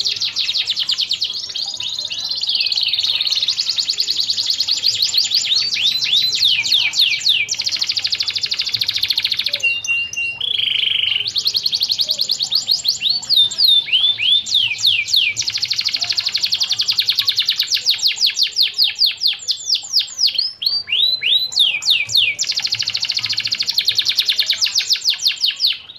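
Domestic canary singing a long, continuous song of fast rolling trills and rapid falling whistled notes, with a short held steady note about ten seconds in.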